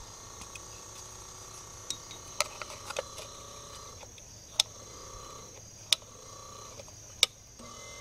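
An old Electra Pal 12-volt trolling motor's electric motor humming in fits and starts as its push-button switch is pressed, with several sharp clicks of the switch. The motor cuts in and out, which the owner puts down to a faulty switch.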